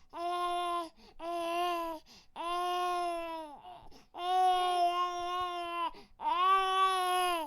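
Baby crying in five wails with short breaths between, each wail held at a fairly steady pitch, the fourth the longest.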